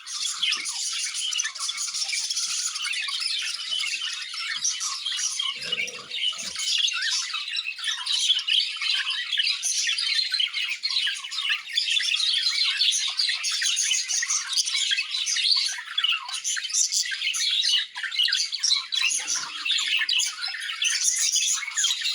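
A flock of budgerigars chattering, with many quick overlapping high chirps and warbles.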